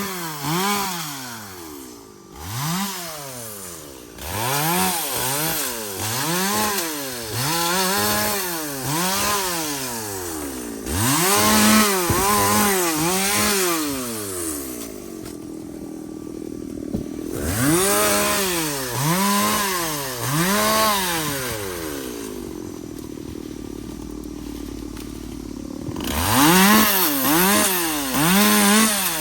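Two-stroke chainsaw working in wood, its engine pitch rising and falling in repeated surges about once a second. Twice it settles briefly into steadier, quieter running.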